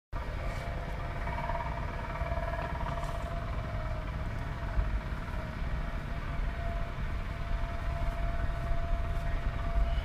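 Wind rumbling on the microphone, with a steady faint hum and a few light knocks as the wooden hive cover is lifted off.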